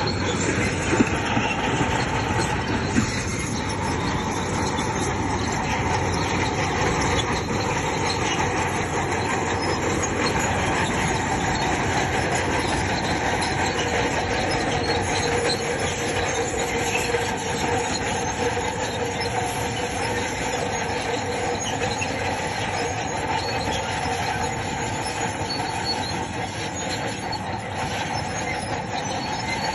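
Bulldozer working, its steel crawler tracks giving a steady metallic squeal over the engine and running gear, with two short knocks early on.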